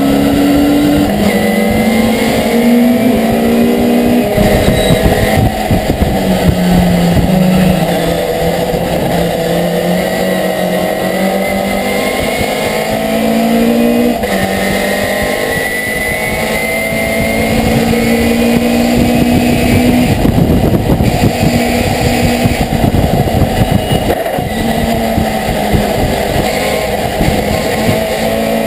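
Race pickup truck's engine heard from inside the cab at racing speed. The pitch climbs under acceleration and drops back at each gear change or lift, several times over, with road and wind noise underneath.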